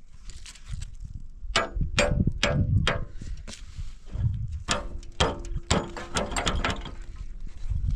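Irregular metallic clicks and knocks from a steel wheelbarrow as its wheel and axle are worked by hand; one strike rings briefly.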